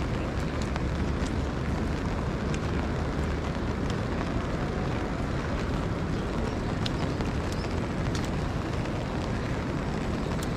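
Steady outdoor rain noise with a low rumble underneath and scattered faint ticks of drops.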